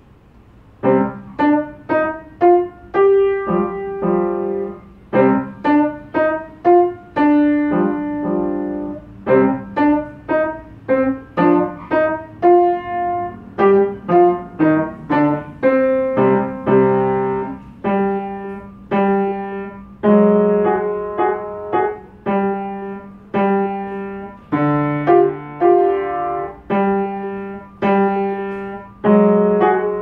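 Upright piano played solo, starting about a second in with a series of short, separate notes and chords.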